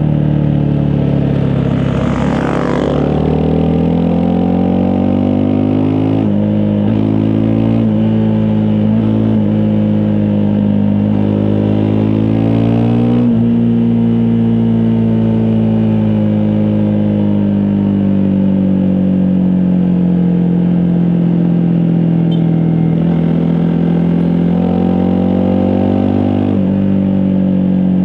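Honda CRF250 Rally single-cylinder dual-sport motorcycle engine running under way, its pitch rising and falling with throttle and gear changes.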